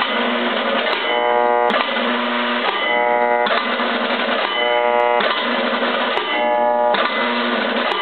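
Federal Signal 3T22 siren's 220 V AC damper solenoids, cycled by the flasher, pulling the dampers shut and letting them open in turn about every second and a half to two seconds. A harsh, noisy buzz alternates with a steadier humming buzz, with clacks at some of the changes.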